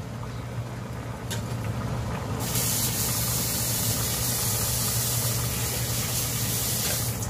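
Chicken adobo sauce simmering in an open pot on an electric cooktop, bubbling with a steady hiss that starts about two and a half seconds in, over a low steady hum.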